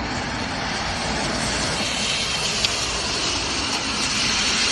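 Tesla Model 3 Performance sliding sideways on wet asphalt: a steady rushing hiss of tyres throwing water, with no engine note, growing somewhat louder in the second half.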